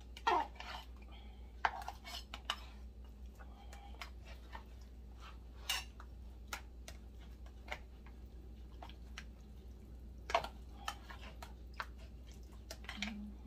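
Metal kitchen tongs clicking and tapping against a plastic tub while beef ribs are lifted and dipped in barbecue sauce: scattered light clinks at irregular intervals, a few sharper ones, over a low steady hum.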